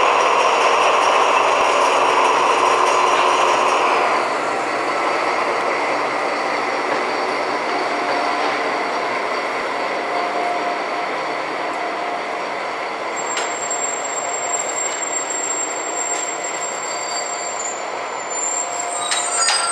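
SNCF BB 67400 diesel-electric locomotive running slowly past under power, hauling Corail coaches, its engine and the rumble of wheels on rail steady throughout. About two-thirds of the way in a thin high squeal joins, and short high squeals come near the end: wheels squealing on the curved station track.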